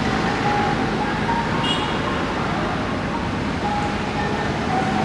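Steady background rumble of road traffic, with faint short high tones scattered through it.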